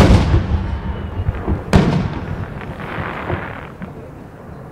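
Aerial firework shells bursting. A sharp loud bang at the start and a second about a second and three-quarters in, each followed by a long echo that fades, then a few fainter pops later on.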